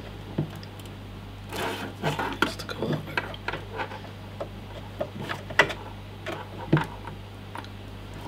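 Sleeved modular cables being handled and their plastic connectors plugged into a Corsair RM750x power supply: scattered clicks and small knocks with cable rubbing, the sharpest clicks a little past the middle, over a steady low hum.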